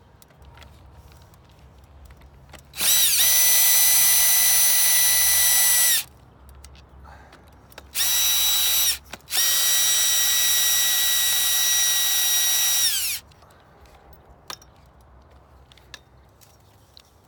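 Power drill/driver backing screws out of the umbrella's rib hub: three runs of a steady high whine, the middle one short, each winding down in pitch as the trigger is released.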